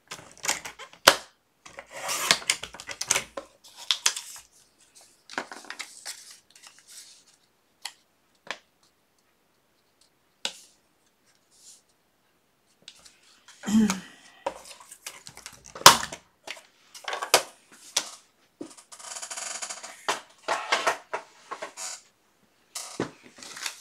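Paper being cut with scissors and handled: short scattered snips and rustles with quiet pauses between them.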